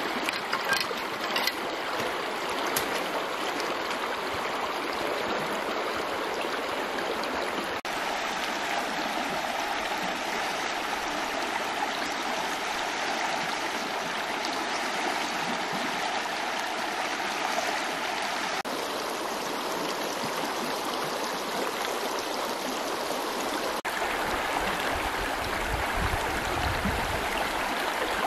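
Shallow river water running steadily over stones, a continuous babble of flowing water, its tone shifting slightly a few times.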